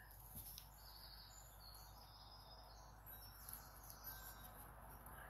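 Near silence: quiet room tone with a few faint high chirps.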